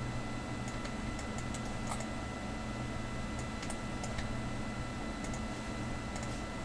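Faint, scattered clicks of a computer mouse and keyboard, a dozen or so at uneven spacing, over a steady low hum of room and electrical noise with a thin steady whine.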